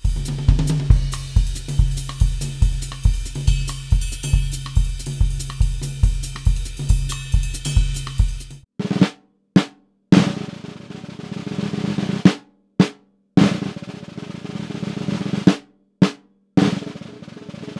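A drum kit plays a Latin groove over a steady bass drum pulse, then stops abruptly about eight and a half seconds in. A marching-style snare drum follows: single accented strokes and rolls that each grow louder and end on a hard accent.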